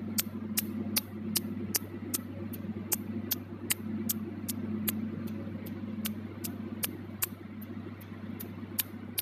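Tattoo-removal laser pulses snapping on the skin of an eyebrow tattoo, one sharp snap about every 0.4 seconds in an even rhythm. A steady low hum from the laser machine runs underneath.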